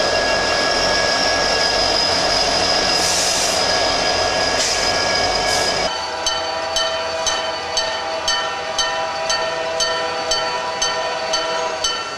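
Nathan K3-series three-chime locomotive air horn sounding a long, loud, steady chord, which cuts off abruptly about six seconds in. Then a railroad crossing bell rings about twice a second over another steady horn chord.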